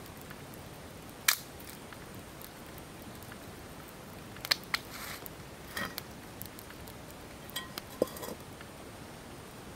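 A handful of short, sharp clicks and taps scattered over several seconds, as of utensils knocking against dishes during a meal. The loudest comes about a second in, and a few more come in the middle and near the end.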